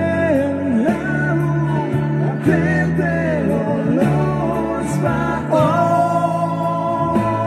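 A song with a voice singing over steady bass notes, holding one long note near the end.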